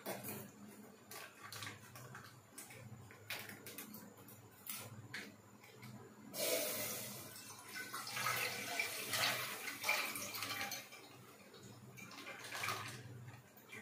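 Liquid poured or running out steadily for about five seconds, starting about six seconds in. Before it come light clicks and knocks of kitchen utensils, and a faint low hum runs underneath.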